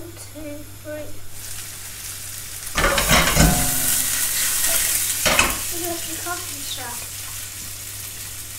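Fennel wedges frying in sunflower oil in a deep sauté pan, sizzling. About three seconds in, the pan is shaken on the gas hob and the sizzle grows louder, with a few knocks, for about two and a half seconds before settling back to a steady sizzle.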